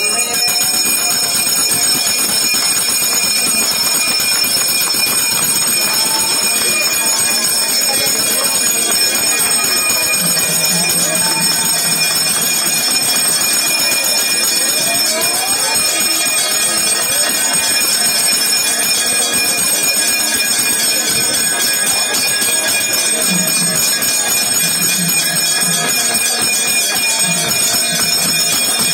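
Temple bells ringing without pause for a lamp offering (mangala harathi) to Shiva, a dense steady jangle with several high ringing tones hanging over it. A low droning tone comes in about ten seconds in and again near the end.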